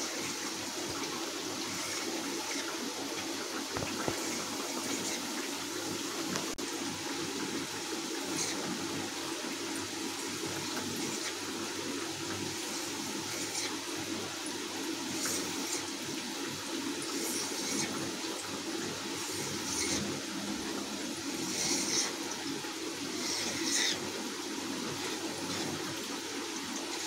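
Steady sizzle of mathri (flaky dough snacks) deep-frying in hot oil, with a few short scraping sounds of a knife cutting strips through a rolled dough sheet on the counter.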